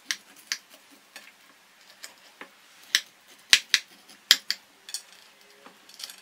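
A knife cutting through a crisp-crusted rava handvo (semolina cake) on a plate: a string of irregular sharp clicks and taps as the blade cuts the crust and meets the plate, loudest from about three to four and a half seconds in.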